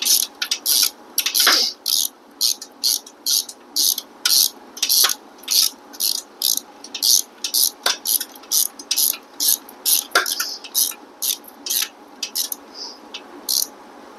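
Hand ratchet clicking in quick, uneven strokes, about three a second, as bolts are run in by hand on the engine's rear housing; the clicks thin out near the end.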